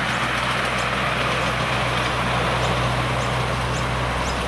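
Miniature live steam model of NSW 36 class locomotive 3658 running steadily with its mixed goods train, giving an even running and rolling noise over a low hum. Short high chirps recur through it.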